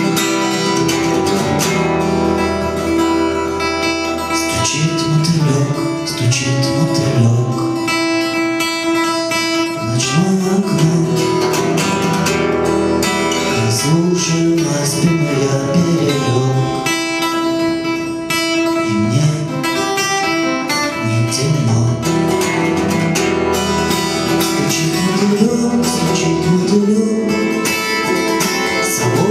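Acoustic guitar music, plucked and strummed, with a lower melody line gliding beneath it; no lyrics are sung.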